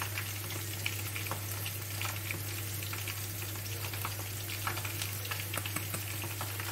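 Sliced onions sizzling in oil in a clay tajine: a steady frying hiss with scattered small crackles, over a low steady hum.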